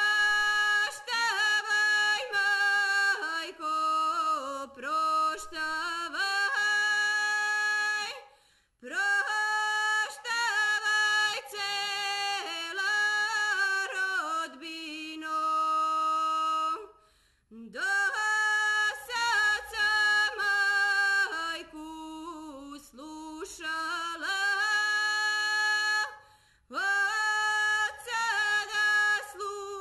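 Unaccompanied singing of a Serbian folk song: long sung phrases with held notes, broken by three short pauses about 8, 17 and 26 seconds in.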